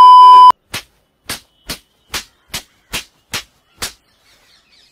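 A loud steady test-card beep tone, cut off about half a second in. Then eight sharp, evenly spaced hits follow, about two a second, and faint bird chirps come in near the end.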